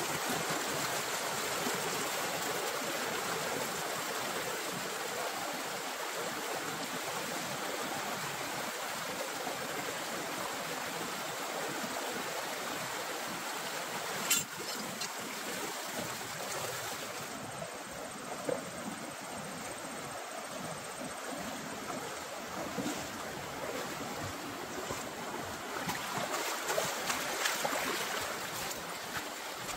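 Mountain stream rushing over rocks, a steady wash of water. There is a sharp click about halfway, after which the water is a little fainter. Footsteps swish through dry grass near the end.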